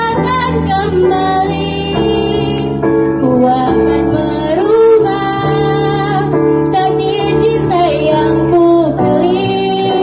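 A teenage girl singing a slow pop song solo over instrumental accompaniment.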